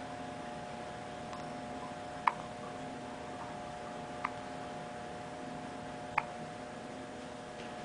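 A three-week-old baby hiccuping: three short hiccups, evenly spaced about two seconds apart.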